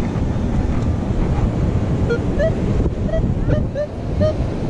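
Wind buffeting the microphone over beach surf. From about two seconds in, the metal detector gives a run of about six short beeps, each turning slightly upward, as its coil passes over coins still in the hole.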